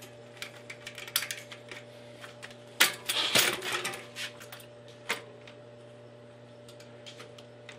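Metallic clicks and rattles of a bicycle's front wheel being taken off its fork by hand, with the loudest burst of rattling about three seconds in.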